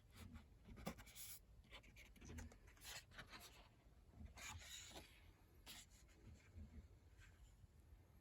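Faint rustling and sliding of paper as the pages of a large illustrated booklet are turned by hand, several short rustles a second or so apart.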